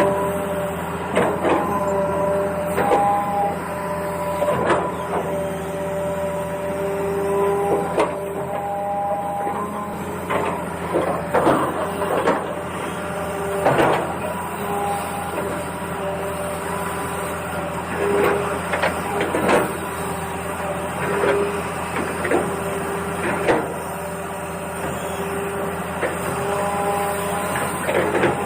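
Small electric motors of an RC excavator whining as they run, their pitch switching up and down every second or two, with frequent plastic clacks and knocks from the moving arm and tracks.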